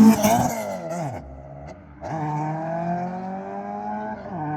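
Sport-bike engines in a launch from a standing start: one screams up to a peak right at the start and falls away in pitch within the first second as it passes. From about two seconds in, an engine pulls steadily higher in pitch, then drops sharply near the end with a gear shift.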